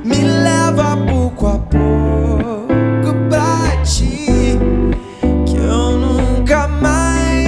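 A pop-rock band song played live: a male voice singing over drums, bass and guitar.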